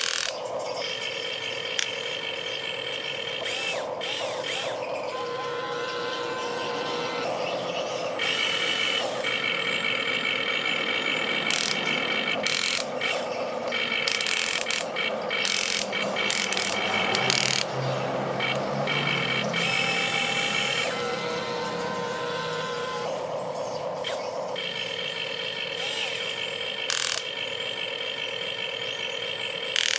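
RC excavator's electric gear motors whining in short runs as the boom, arm and turntable move, stopping and starting between motions, with scattered sharp clicks and knocks from the bucket and dirt.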